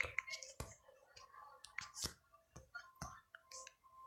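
Scattered light clicks and taps, a few every second, from drawing work at a desk.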